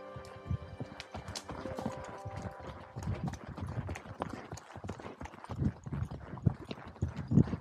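Horse hooves clopping along a trail under a ridden horse, growing louder toward the end. Background music fades out in the first two seconds.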